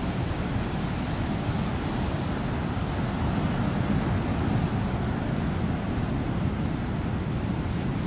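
Steady wind rumble on the microphone, mixed with the wash of ocean surf on a sandy beach.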